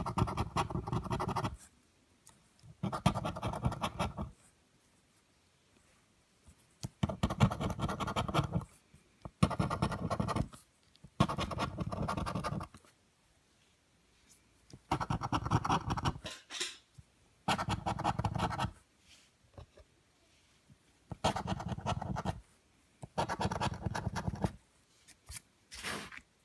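Scratch-off lottery ticket's coating being scratched away in repeated strokes, about ten bursts of scratching each lasting a second or two with short pauses between.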